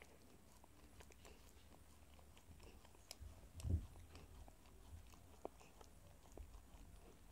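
Miniature dachshund mother licking her newborn puppy: faint wet licking and mouth clicks. There is one dull low thump a little under four seconds in.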